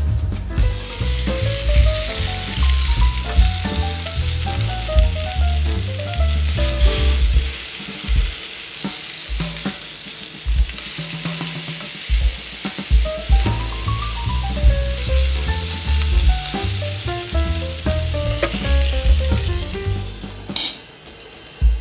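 Vegetable skewers sizzling on a hot Happycall double grill pan: a steady frying hiss.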